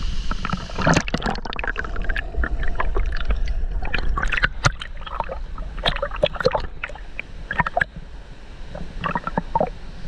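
Water sloshing and splashing around a camera held at the surface of a pool, with a person swimming close by: many irregular splashes and gurgles over a low watery rumble.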